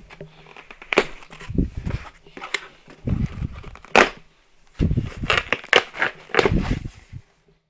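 Cardboard shipping box being beaten with a snapback cap and torn open by hand: several sharp hits with crunching and ripping cardboard between them, thickest in the last few seconds.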